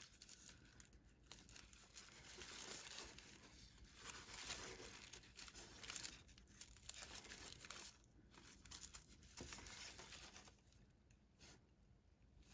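Faint, irregular crinkling and rustling of raffia yarn as it is drawn through the stitches and wrapped over a metal crochet hook.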